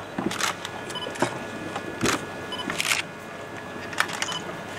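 Camera shutters clicking at irregular moments, several cameras firing single shots and short quick bursts.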